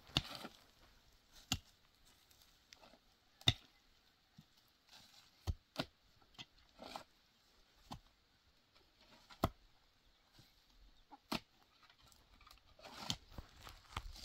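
Pickaxe and hoe striking dry, stony soil: short, sharp strikes at irregular intervals, roughly one every second or two.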